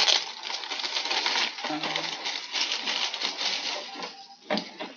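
Paper and thin packaging sheets rustling and crinkling as they are handled, a dense crackle that thins out about four seconds in, with one sharp rustle near the end.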